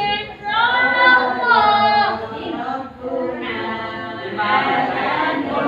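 Voices singing an Arabic devotional song in long, held notes.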